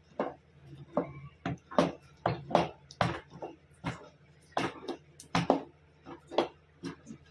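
Wooden spoon knocking and scraping against an aluminium pot as thick chicken-and-oats haleem is beaten (ghota) to mash it smooth, in a quick, irregular series of knocks about two or three a second.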